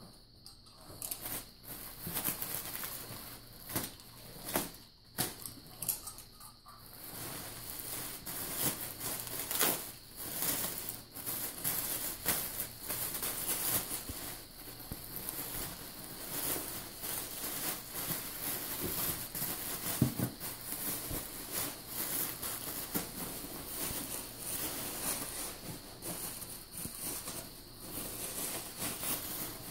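Packaging rustling and crinkling as a fursuit head is unwrapped and handled, with scattered taps. It comes in sparse bursts at first and turns into continuous rustling from about seven seconds on, with one sharp knock about two-thirds of the way through.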